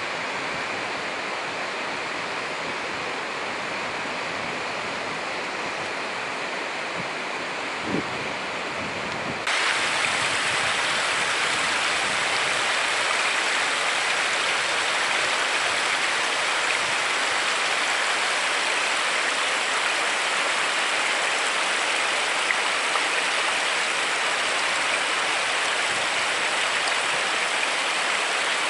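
Steady rush of a waterfall and glacial meltwater stream. About nine and a half seconds in it suddenly gets louder and brighter, just after a single short knock.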